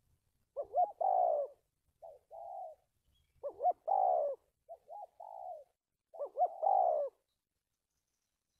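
Spotted dove cooing: three loud phrases about 2.8 seconds apart, each a couple of short notes running into a longer coo, with a softer coo phrase between each pair.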